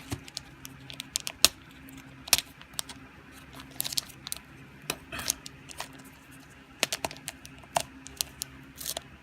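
Cards and packaging being handled: scattered light clicks and rustles, the sharpest about a second and a half in, over a faint steady hum.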